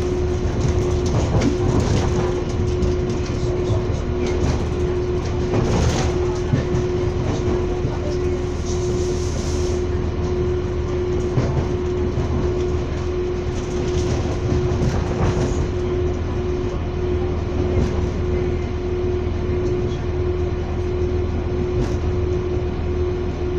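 Moving passenger train heard from inside the carriage: a steady rumble of the running gear with a constant hum, and irregular clicks and knocks from the wheels on the track.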